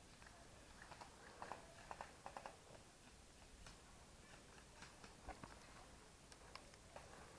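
Near silence, broken by a few faint, scattered clicks, with a small cluster of them about one to two and a half seconds in.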